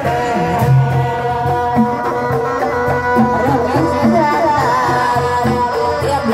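Live Sundanese-style dangdut street music: hand drums keep a steady beat under a wavering, ornamented melody with a singing voice.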